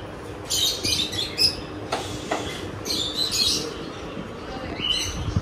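Short bird-like chirps in several quick clusters over a steady low hum.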